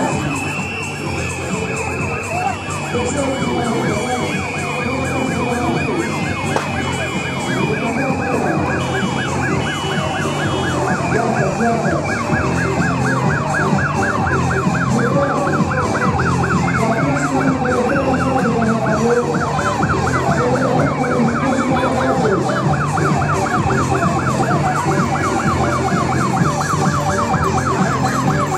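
Ambulance siren sounding a fast warble that rises and falls several times a second, becoming clearer and more regular about ten seconds in.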